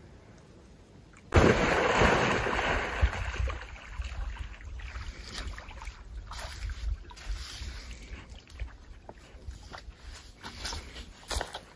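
Wind buffeting the microphone, starting suddenly about a second in with a strong gust that eases into an uneven low rumble, with light water splashing and lapping.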